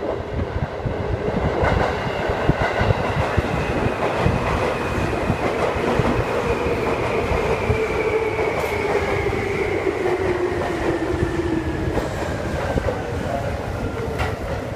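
Seibu 6000 series electric train running into the platform and slowing to a stop, with a whine that falls steadily in pitch as it brakes, over the rumble of its wheels on the rails.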